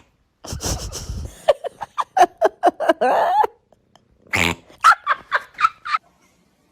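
A pet animal giving two bouts of short, rapidly repeated cries, the second bout higher-pitched.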